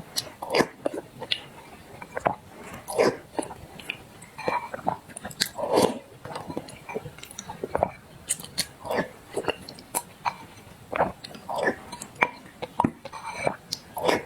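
Close-miked eating: a person chewing and swallowing mouthfuls of thick black sesame paste, with irregular wet mouth smacks and clicks about once or twice a second.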